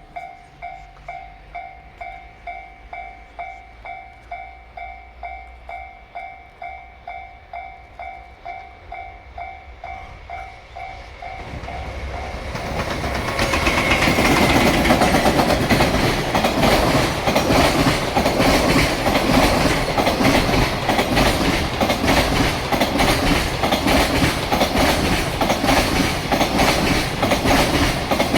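Japanese level-crossing warning bell ringing about twice a second. About twelve seconds in, a JR Freight EF210 electric locomotive hauling container wagons arrives and passes at speed, and the loud clatter of its wheels over the rail joints takes over.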